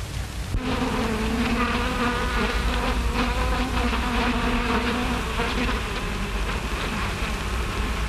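A swarm of bees buzzing: a steady drone that wavers slightly in pitch, starting about half a second in.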